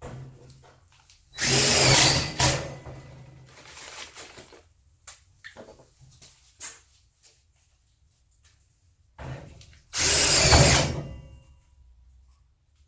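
Cordless drill-driver working on a metal wall plate, running in two short bursts of about a second each, one about a second and a half in and one about ten seconds in. Lighter clicks and knocks from handling the tool lie between the bursts.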